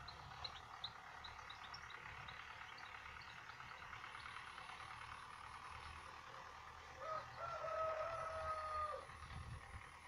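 Spring birdsong: small birds give quick, high chirps through the first few seconds. Then a rooster crows once, about seven seconds in; the crow is held for about two seconds and is the loudest sound.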